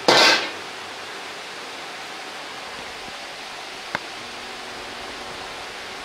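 Steady rushing noise of a working restaurant kitchen, after a loud, short whoosh at the very start, with one small click about four seconds in.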